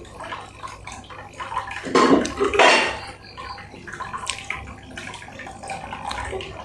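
Close-miked wet chewing and mouth sounds of someone eating fried chicken with his hand, with a louder burst of noise about two to three seconds in.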